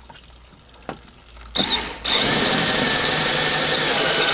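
Cordless drill driving a self-drilling screw through the manifold's mounting bracket into OSB. It gives a short burst about a second and a half in, then runs steadily for the last two seconds.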